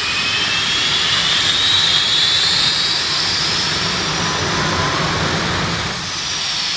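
Jet-turbine dragster engine running loud, its turbine whine climbing steadily in pitch, then dropping back near the end.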